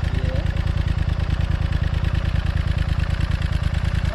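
Royal Enfield Continental GT 650's parallel-twin engine idling steadily through a Red Rooster aftermarket exhaust with its dB killer fitted.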